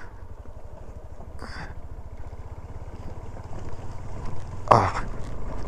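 Motorcycle engine running steadily, its even low pulse heard from the bike itself under light wind and gravel noise. A man gives a short "ah" near the end.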